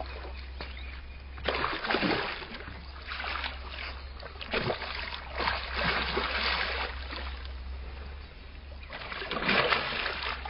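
Hooked barramundi thrashing at the water's surface, splashing in several bursts, the loudest near the end.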